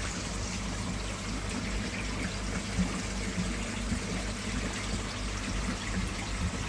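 Water trickling and splashing steadily into a koi tank, with a low steady hum underneath.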